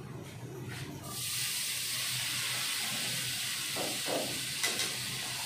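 Chopped vegetables and aromatics tipped into hot oil, sizzling: a steady frying hiss that starts suddenly about a second in. A couple of short knocks come near the end.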